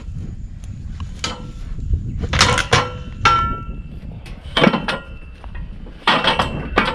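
Metal livestock chute and gates clanging and rattling, a string of clanks, several of them ringing on, as a cow is worked out of the chute.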